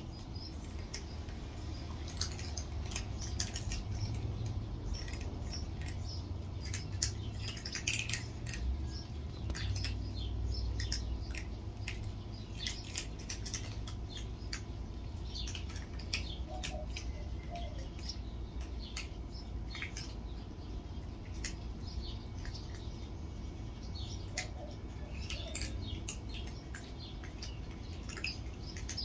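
Cats crunching dry kibble: a quick, irregular run of crisp clicks over a steady low rumble.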